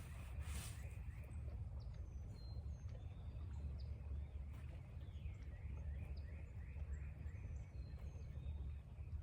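Birds chirping and whistling in short calls, with a quick run of descending notes in the middle, over a steady low rumble.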